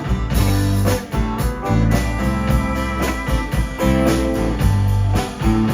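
Instrumental passage of a blues-rock band song: sustained keyboard or organ chords over guitar, bass and a steady drum beat.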